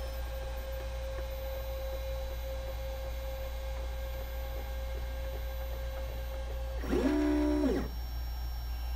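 MakerBot 3D printer's stepper motors whining as the build plate lowers at the end of a print: a steady single tone over a constant low hum. About seven seconds in comes a louder, shorter move whose pitch ramps up, holds and ramps back down.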